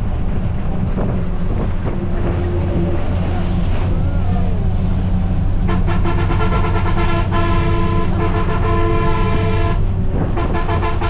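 Steady engine and road rumble heard from inside a moving local bus with its window open. About six seconds in, a loud vehicle horn sounds for about four seconds, followed by shorter honks near the end.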